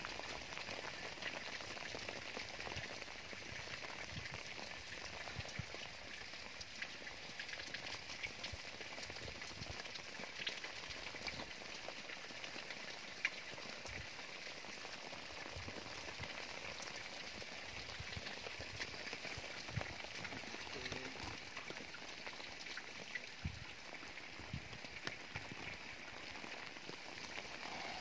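Wet snow pattering on a moving car: a steady hiss with many scattered soft ticks and a few sharper clicks.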